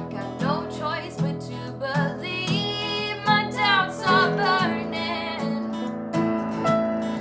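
Worship music: strummed acoustic guitar with a singing voice.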